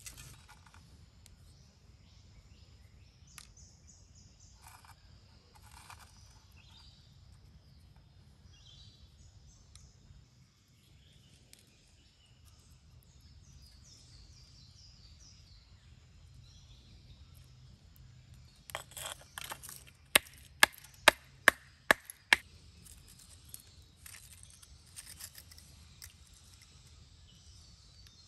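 Quiet outdoor ambience with birds chirping. About two-thirds of the way through, a short scrape is followed by six sharp knocks in quick succession: stone striking lumps of iron-smelt slag.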